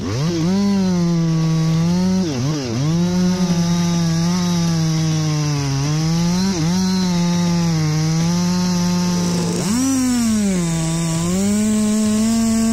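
Two-stroke chainsaw running at full throttle while cutting into a tree trunk, its pitch dipping and recovering a few times.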